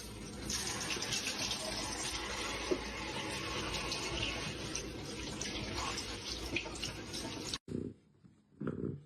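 Steady rush of running water, like a tap running into a sink, which cuts off abruptly about seven and a half seconds in. Short repeated sounds follow near the end.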